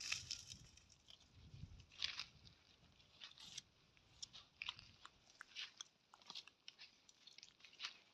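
Dromedary camel browsing a thorny tree, biting and chewing leafy twigs: faint, irregular crunching and snapping.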